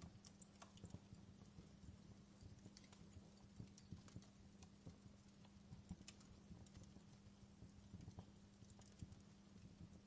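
Wood fire crackling faintly, with scattered irregular pops and snaps over a low steady hum.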